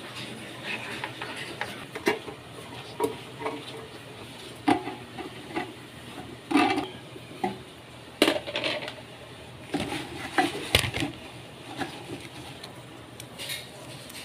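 Irregular metallic clanks, clicks and knocks from a stainless steel electric cooker body and its aluminium heating plate being handled and fitted back together.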